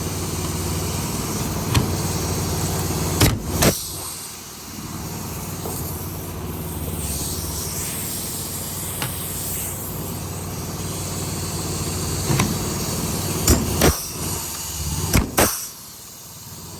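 A motor running with a steady low hum, broken by several sharp clicks and knocks; the hum drops away near the end.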